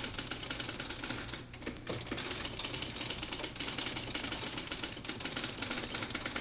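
Rapid, continuous mechanical clatter of fast clicks, like a typewriter's, with brief dips about one and a half and two seconds in.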